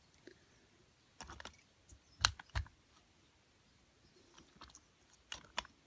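Scattered light clicks and taps of a plastic Trackmaster toy engine being handled, with a few sharper clicks about two seconds in and again near the end.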